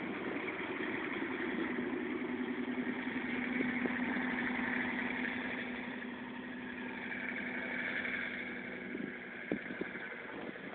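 Dodge Durango on home-built tracks driving through deep snow: its engine runs steadily, growing fainter in the second half as it moves away.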